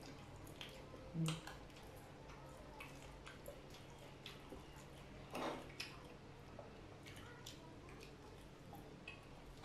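Quiet eating by hand: scattered soft mouth clicks and lip smacks as soft rice cakes and curry are chewed, with a couple of slightly louder smacks about a second in and just past halfway, over a faint steady low hum.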